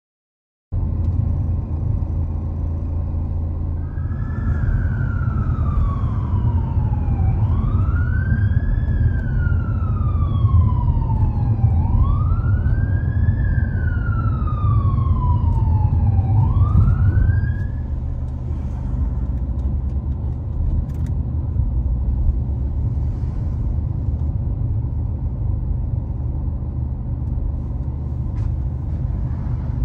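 Emergency-vehicle siren wailing in slow cycles, each a quick rise in pitch followed by a long fall, about every four and a half seconds; it starts a few seconds in and stops a little past the middle. Under it runs the steady low rumble of a car driving, which cuts in after about a second of silence.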